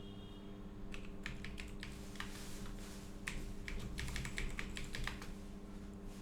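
Computer keyboard typing, irregular keystrokes from about a second in until near the end, over a steady low hum.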